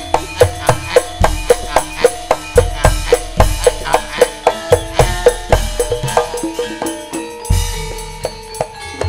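Javanese gamelan playing for tayub dancing: bronze metallophones strike a steady melody of about four notes a second, with deep drum strokes.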